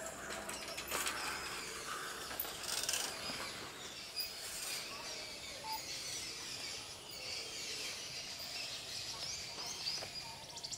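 Birds chirping and calling from the trees over a light outdoor background hiss, with a brief rapid run of ticks near the end.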